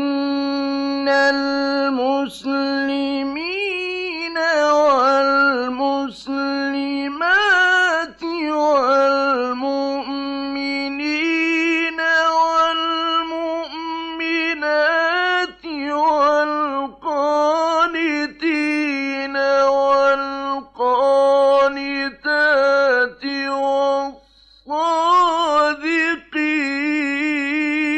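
A male Quran reciter chanting in the melodic mujawwad style: one high, strong voice holding long ornamented notes with vibrato and gliding runs, in phrases broken by short breaths. There is a longer pause about 24 seconds in.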